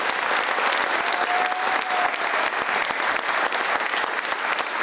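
Audience in a packed hall applauding, a dense steady clapping, with a brief thin high tone about a second in.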